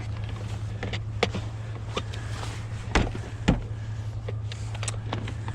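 Scrap being handled and dropped: several sharp knocks and clatters, the loudest two about three and three and a half seconds in, over a steady low hum.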